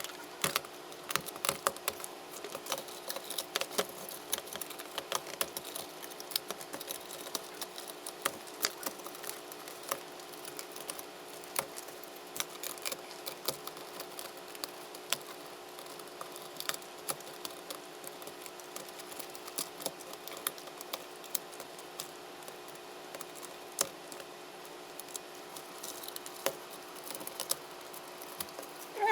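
Rapid, irregular small clicks and snaps of plastic and metal as the keys of a MacBook Pro A1708 butterfly keyboard are stabbed through and broken out of the aluminium top case with wire cutters. A faint steady hum runs underneath.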